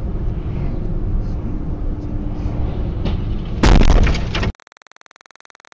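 Dashcam car's steady road and engine noise, then about three and a half seconds in a loud crash with glass breaking as debris strikes the car. The sound cuts off abruptly half a second later into a faint steady electronic buzz.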